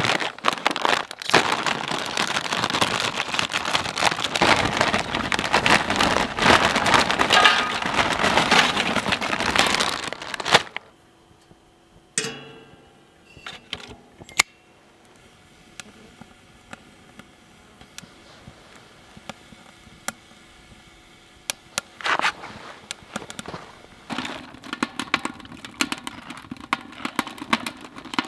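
Tortilla chips shaken out of a crinkly foil snack bag, with a dense loud crunching and rustling for about ten seconds. Then a few sharp clicks, followed by a quiet stretch with scattered faint crackles as the chips burn. Bag rustling returns near the end.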